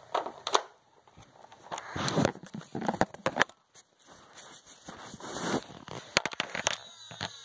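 Rustling and plastic clicks and knocks from handling, with a quick run of sharp clicks late on.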